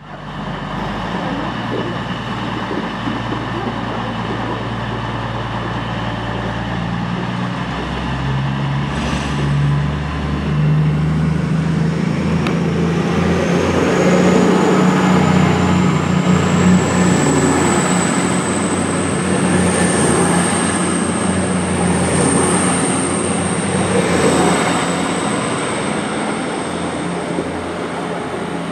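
East Midlands Railway Class 222 Meridian diesel multiple unit pulling away and running past close by, its diesel engines rising in pitch as they work harder. A high-pitched whine climbs from about halfway through and then holds, with the sound loudest as the train passes and easing a little near the end.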